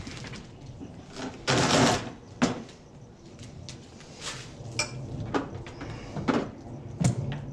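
Lawn mower's plastic grass catcher being handled and fitted onto the back of the mower: a scraping slide about a second and a half in, then scattered plastic clicks and knocks.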